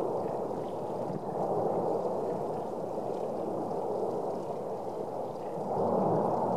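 La Palma volcano's vent erupting, lava spatter fountaining out with a steady, deep rushing of gas and ejecta that swells a little over a second in and again near the end.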